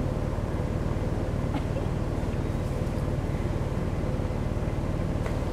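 A vehicle engine running at a steady idle: a low, even rumble with a fast regular pulse.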